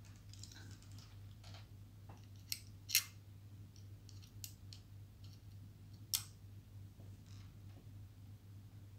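Light metallic clicks and taps of a small precision screwdriver and parts on an opened laptop hard drive, with the sharpest clicks about three seconds in and again about six seconds in, over a faint steady low hum.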